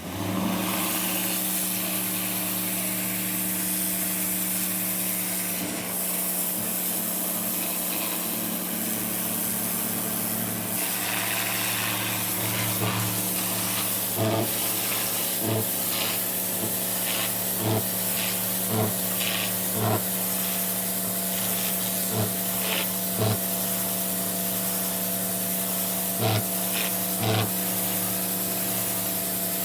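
A motor-driven cleaning or surface-working power tool running steadily, a hum under a rushing hiss, with short scraping bursts about every one to two seconds in the second half as it works the steps.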